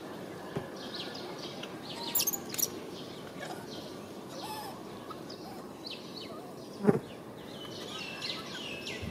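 Birds chirping in short scattered calls over a steady outdoor hiss, with a sharp thump about seven seconds in.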